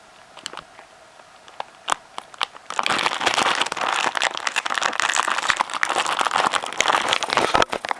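Clear plastic packaging bag crinkling loudly as it is handled and opened, after a few light clicks and taps. The crinkling starts about three seconds in and stops sharply near the end.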